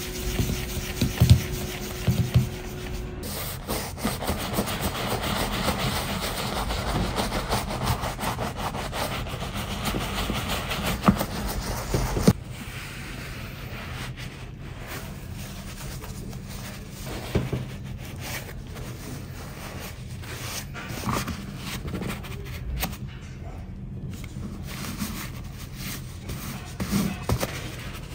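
Bristle brush scrubbing a leather boot with foaming leather cleaner in a dense, steady scrub. About twelve seconds in it gives way to quieter, on-and-off wiping of the lather from the leather with a paper towel.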